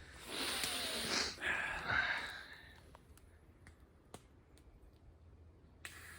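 A person's breathy exhaling in two swells over the first three seconds, followed by a few faint scattered clicks.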